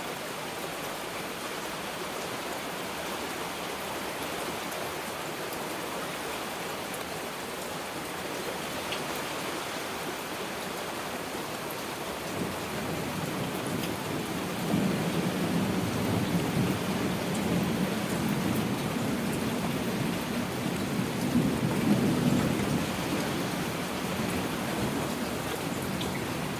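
Steady heavy rain with thunder: a low rolling rumble builds about halfway through, swells for several seconds and then eases off under the rain.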